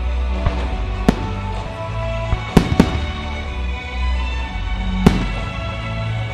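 Fireworks display: firework shells launching and bursting with several sharp bangs, the loudest a pair about two and a half seconds in and one about five seconds in. Music accompanying the show plays steadily underneath.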